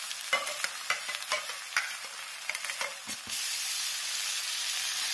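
Hot oil sizzling under browned onions and freshly added ginger garlic paste in a deep pan, with a few light clicks like a spoon touching the metal. About three seconds in, the sizzle turns steadier and a little louder.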